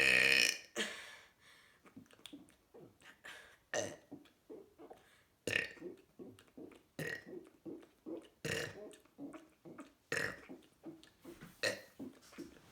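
A person burping over and over: one long, loud burp at the start, then a run of shorter burps, the stronger ones about every second and a half with fainter ones in between.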